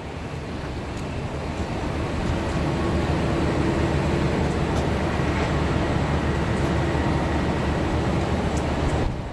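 Heavy haulage truck diesel engines running under load as they pull an oversize trailer load, a steady low rumble that swells about two seconds in and holds.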